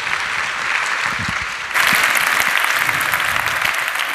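Audience applauding: dense, continuous clapping that gets louder about two seconds in.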